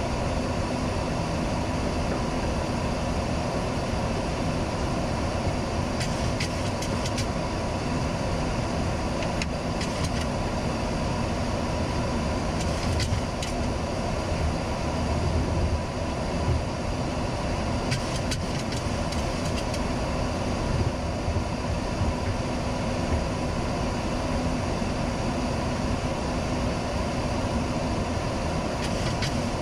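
Boeing 737-800 flight-deck noise in flight: a steady rush of air with an even hum underneath, and a few faint clicks scattered through it.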